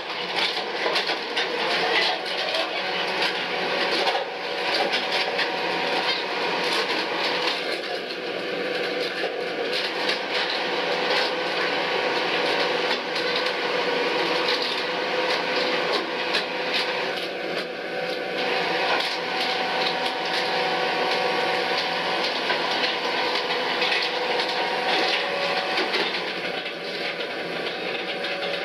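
Trawler's trawl winches hauling in the steel warps: a steady mechanical hum with a held tone and constant light rattling. Higher tones come in briefly three times, each for a second or two.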